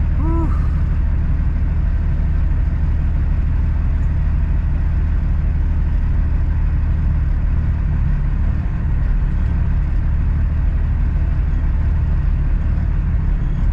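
Steady low drone of a heavy truck's diesel engine and road noise heard from inside the cab of a Kenworth W900L while it drives.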